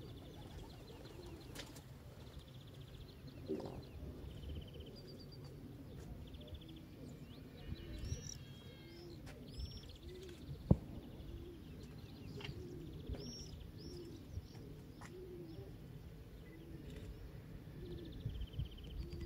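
Pigeons cooing in a long repeated run of low, arching calls, with small birds chirping and trilling high above them. A single sharp click sounds a little past halfway.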